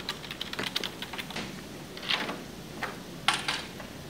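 Typing on a computer keyboard: a quick run of key clicks, then two louder brief noises about two and three seconds in.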